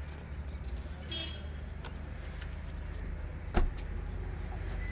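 An SUV door slammed shut once, about three and a half seconds in, over a steady low rumble.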